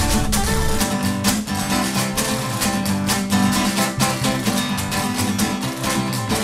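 The instrumental opening of a song: strummed acoustic guitar at a steady rhythm, with no singing yet.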